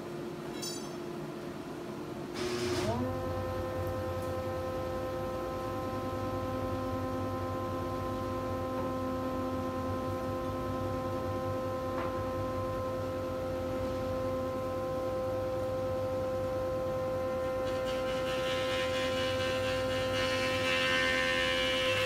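Thickness planer switched on about two and a half seconds in, its motor winding up quickly to a steady high whine. Near the end a rougher cutting noise joins as the cutterhead starts taking a pass off an air-dried poplar board.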